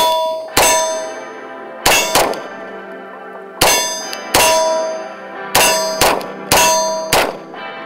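Beretta M9A1 9mm pistol fired about ten times, single shots and quick pairs, with a steel target ringing in a clang after many of the hits.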